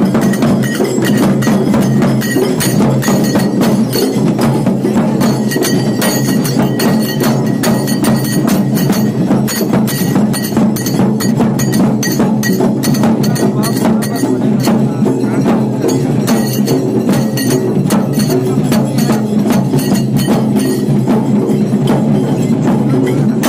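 Loud festival percussion music: rapid, unbroken drum strikes with sharp wooden clacks and a metallic ringing, keeping up the beat for a procession dance.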